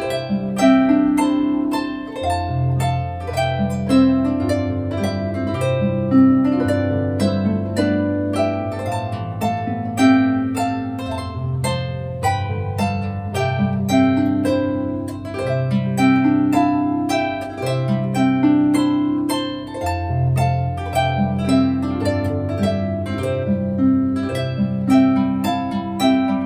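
Background harp music: quick plucked notes over a slower line of held bass notes, playing steadily.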